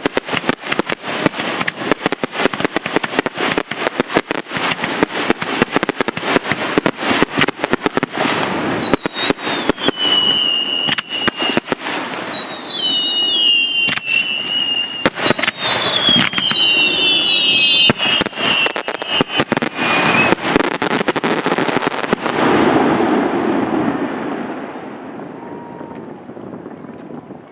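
Fireworks display: a rapid, dense barrage of bangs and crackles, with several high whistles falling in pitch in the middle, then dying away near the end.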